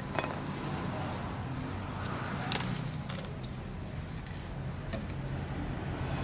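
Scattered light metallic clinks and clicks, like hand tools or small metal parts being handled, over a steady low hum.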